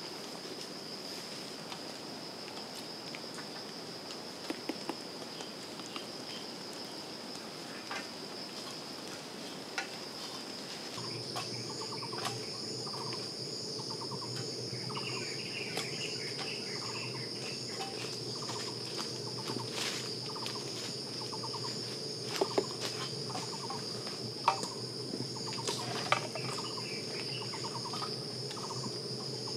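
Steady high-pitched insect drone, like crickets, running throughout. About a third of the way in, birds join with short repeated calls, and a few sharp clicks and knocks stand out, the loudest near the end.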